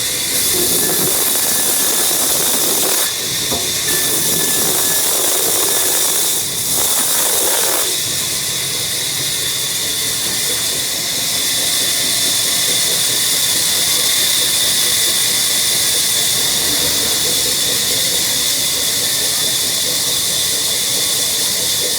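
Power woodworking machine cutting wood: a steady high-pitched whine over a loud hiss. The sound shifts and dips briefly a few times in the first eight seconds, then holds even.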